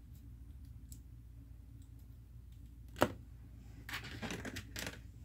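Small plastic Lego pieces clicking as they are handled and pressed together: faint scattered clicks, one sharp click about three seconds in, then a run of small clicks shortly after.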